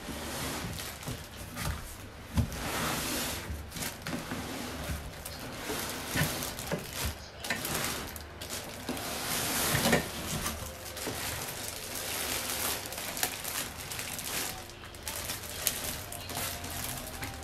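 Large cardboard shipping box being opened and unpacked by hand: irregular rustling and scraping of cardboard and plastic packing, with scattered knocks.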